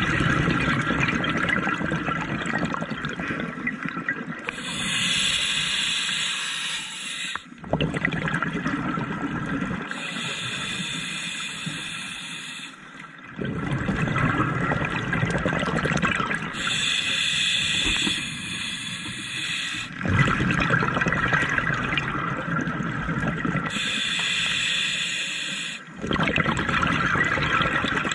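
Scuba diver breathing through a regulator underwater: a hissing inhale alternating with a louder bubbling exhale, about four breaths in a slow, even rhythm.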